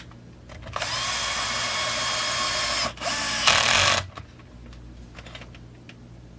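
Electric drill/driver running in two bursts, one of about two seconds and then a shorter one of about a second, driving in the lower dog bolt that holds the chain catcher on the chainsaw crankcase.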